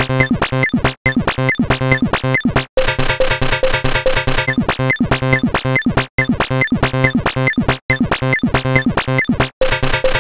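Background music of quick, evenly repeating notes, broken by brief gaps every couple of seconds.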